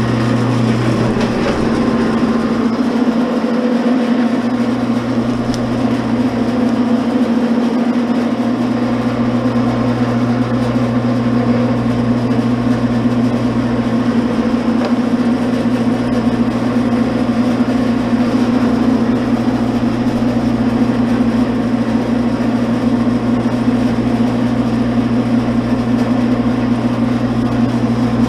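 Commercial electric wire stripper running, its motor giving a loud, steady hum.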